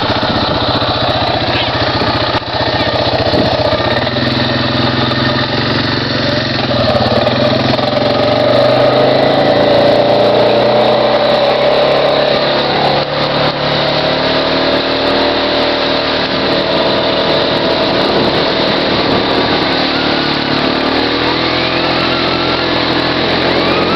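ATV engine running under load while towing, its pitch rising and falling with the throttle.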